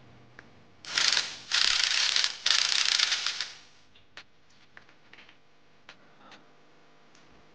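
Socket wrench on a long extension turning a catalytic converter stud nut: three loud bursts of ratcheting, each under a second, then a few light clicks and taps of the tool.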